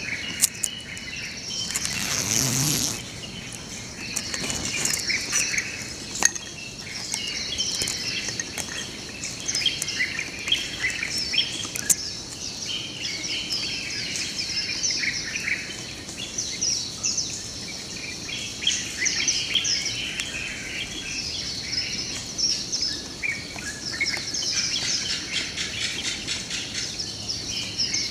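Dawn chorus of many small birds chirping and twittering in quick overlapping calls, over a thin steady high-pitched tone. A brief rushing noise comes about two seconds in.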